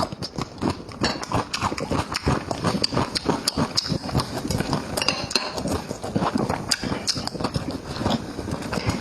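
A person chewing a mouthful of meat with the mouth open, a dense, irregular run of wet smacking clicks.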